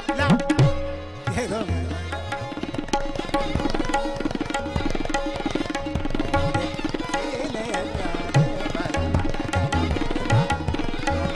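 Tabla played in a rapid stream of strokes, the bass drum's pitch sliding up and down under the hand, over a steady held drone note.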